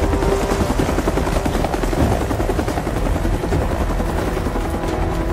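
Military helicopter running steadily, its rotor beating and turbine engine droning loudly.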